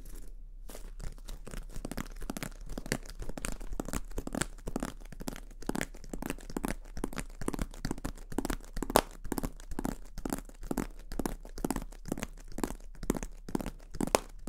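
Fingernails tapping and scratching on a cardboard toy box, in quick irregular clicks with scratchy rubbing between them.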